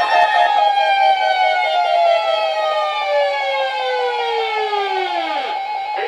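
Weather alert radios sounding their alarms for the weekly test. A siren-type alarm slides steadily down in pitch and dies out about five and a half seconds in, while a pulsing beep tone keeps going.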